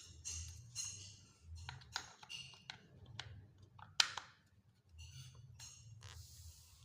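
Irregular small clicks, scrapes and rustles of hands handling the grass-cutter engine's air filter parts, with one sharper click about four seconds in and a short rushing hiss near the end.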